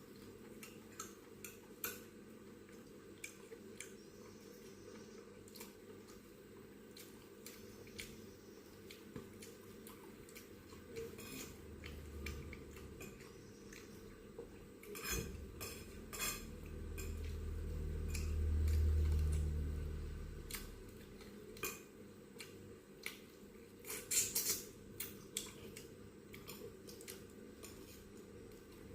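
Scattered light clinks and scrapes of a utensil and dishes on a plate during eating, with a cluster of sharper clicks near the end. A low rumble swells and fades about two-thirds of the way through.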